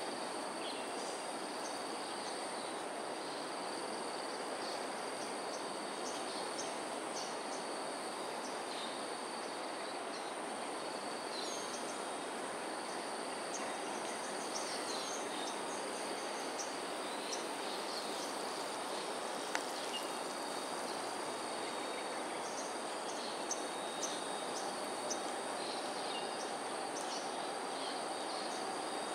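Steady outdoor ambience: a continuous high-pitched insect drone over an even background hiss, with many short high chirps scattered through it and a few faint clicks.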